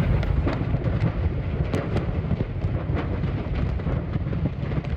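Large industrial fire burning with a heavy steady rumble, shot through with many sharp pops and cracks of small explosions going off in quick succession.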